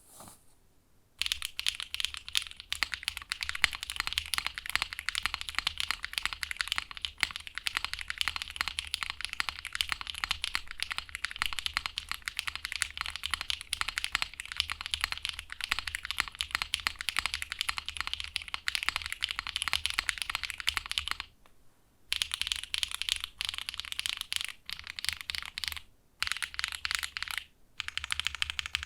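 Typing on a Matrix Magic3 60 mechanical keyboard with a polypropylene plate, a thin PCB and hand-lubed Birthday Cake tactile switches. A dense run of keystrokes, slightly muted rather than clacky. It starts about a second in and breaks off briefly about two-thirds through and twice more near the end.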